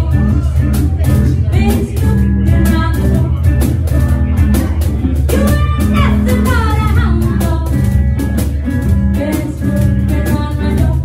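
Live band: a woman singing through a microphone and PA, backed by an archtop electric guitar and a cajón slapped by hand in a steady beat.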